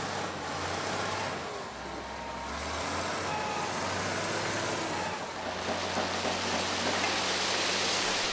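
Allis-Chalmers 645 wheel loader's diesel engine running steadily under work, its note changing pitch about two seconds and again about five seconds in.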